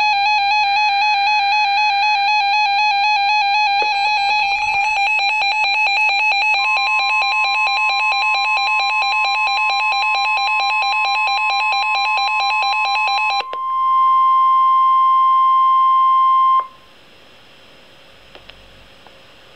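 NOAA Weather Radio receiver sounding an alert. The last SAME data-header burst sits over the receiver's warbling electronic alarm, which turns into a rapid pulsing beep about four seconds in. From about seven seconds a steady 1050 Hz weather-radio warning tone sounds for about ten seconds, alone and louder once the receiver's alarm cuts off, then stops abruptly and leaves faint hiss.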